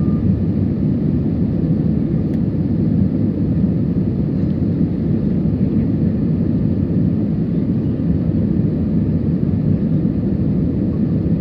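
Steady rumble of an airliner's engines and airflow heard from inside the passenger cabin, even in level throughout, with most of its weight low in pitch.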